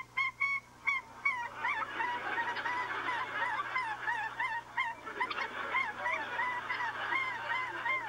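Rapid, repeated honking calls, several a second, each a short pitched note. From about a second and a half in, a steady noisy rush sounds under them, and the honks become wavier.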